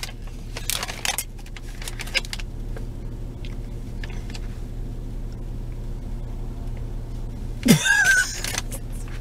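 Steady low hum of a car idling, heard inside the cabin. A paper fast-food bag rustles and crinkles in the first couple of seconds, and there is a brief vocal exclamation about eight seconds in.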